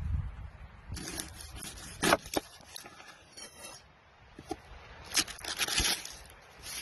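Head of garlic knocked and crushed under a palm on a wooden cutting board. There are sharp knocks about two seconds in, then a harder hit near the end with a second of crackling as the papery skin splits and the cloves break apart.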